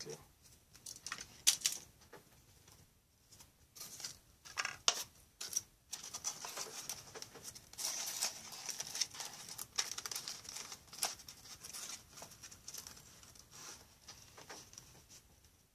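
Foamboard and wooden craft-stick parts of a model revolving door being handled and fitted together: irregular small clicks and taps, with a stretch of scratchy rubbing in the middle.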